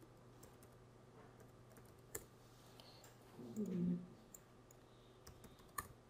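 Faint, sparse clicks of a computer keyboard as a web address is typed, with a brief low murmured voice about halfway through.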